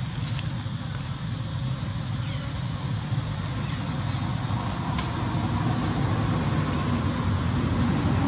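Steady outdoor background noise: a constant high-pitched drone over a low rumble that grows slightly louder near the end.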